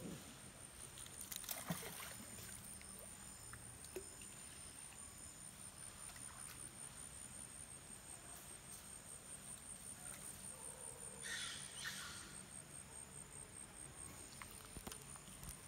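Insects trilling steadily in the rainforest: one thin, high, finely pulsing tone. A brief noisy burst comes about eleven seconds in.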